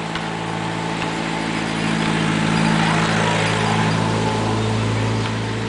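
A motor engine running with a steady hum, growing louder about two seconds in and then easing off, over a hiss of wind and surf.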